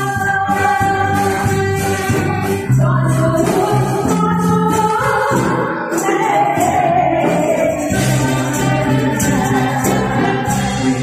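A woman singing a Taiwanese Hokkien pop song over amplified instrumental accompaniment, at a steady loud level.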